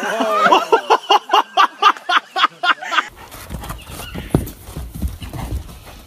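A person laughing hard in quick, evenly repeated bursts for about three seconds. Then, after a sudden change, a horse's hooves thud on sandy ground with a low rumble of wind on the microphone.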